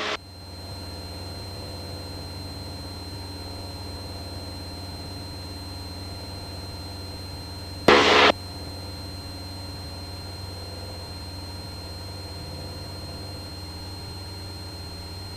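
Cessna 172's piston engine droning steadily in cruise, with a thin steady high whine above it. A short burst of noise breaks in about eight seconds in.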